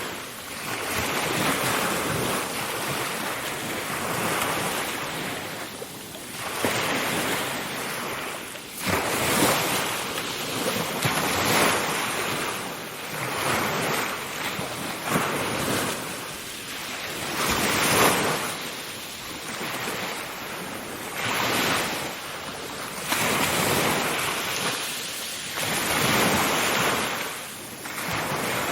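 Ocean waves washing ashore in a continuous surf, the rush of water swelling and fading every two to three seconds.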